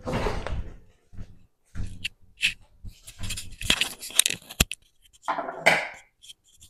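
Handling and movement noises as a person gets up from a desk chair and moves off: a run of rustles, knocks and clatters, with a sharp click about four and a half seconds in.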